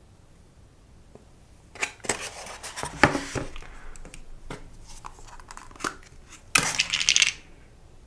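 Plastic takeout packaging being handled close to the microphone: crinkling and tearing noise about two seconds in, scattered light clicks, then a second dense crinkle near the end.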